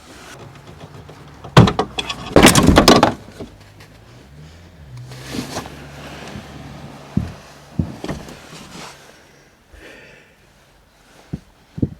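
Knocks and a loud clatter as the tailgate gas strut is pulled free of its mounts. There is one sharp knock, then a longer rattle of metal and trim a second later, followed by a few lighter knocks.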